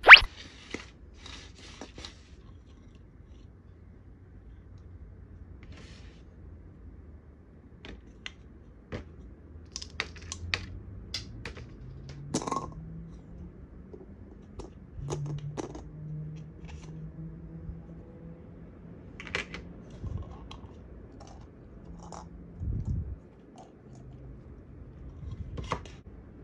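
Handling noise from plastic toy cups, a plastic knife and play dough: scattered clicks, taps and light scrapes of plastic on plastic, with a sharp click right at the start. A faint low hum runs under the middle part.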